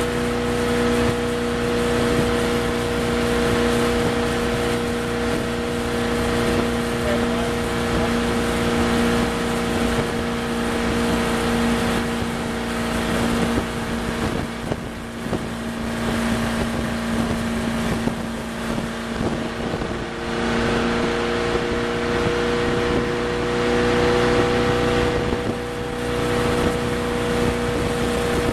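Ski tow boat's engine running at steady speed while pulling a water skier: a constant drone, with wind noise on the microphone and rushing water.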